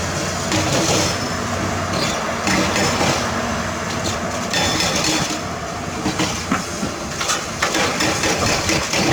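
Large Doosan 500 LCV excavator at work loading dirt into a dump truck. Its diesel engine runs steadily under the irregular clanking and rattling of dirt, rock and steel.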